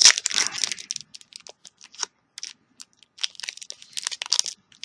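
Trading card booster pack wrapper crinkling and crackling as it is handled and pulled open, in two bursts: one at the start and another from about three seconds in.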